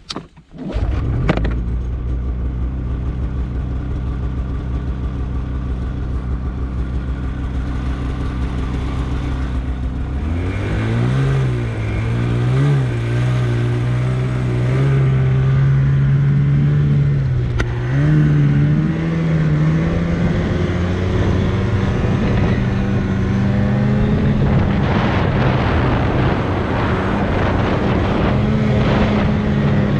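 Snowmobile engine catching about a second in and idling steadily, then revving in uneven blips about ten seconds in as the sled pulls away. It then runs under throttle, its pitch climbing gradually as the sled heads up a snowy hill.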